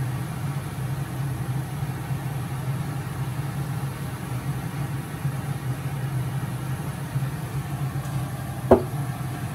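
Pot of water and fish bagoong at a rolling boil, bubbling over a steady low hum. A single sharp knock comes near the end.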